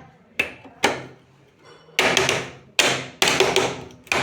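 A series of sharp knocks, as of hammering or tapping on a washing machine under repair. There are two lighter knocks in the first second, then three louder ones in the second half that ring on briefly after each strike.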